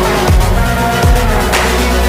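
Electronic music with a heavy bass line and a steady beat, drum hits about twice a second.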